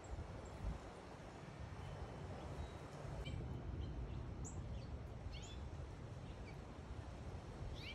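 Small backyard songbirds chirping: short, quick high chirps, scattered and irregular, starting a few seconds in, over a steady low background rumble.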